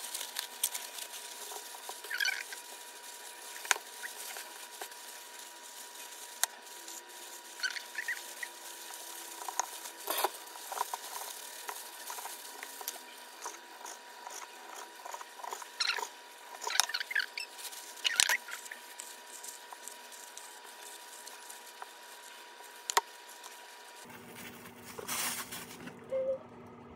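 Food-prep handling sounds: thin plastic gloves rustling and crinkling, a knife cutting through a kimbap roll on a wooden board, and a plastic container being handled. They come as scattered clicks and crinkles.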